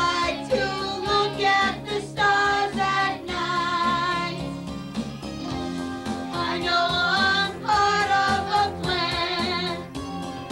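A group of children singing a children's song together with a woman's voice, over instrumental backing music.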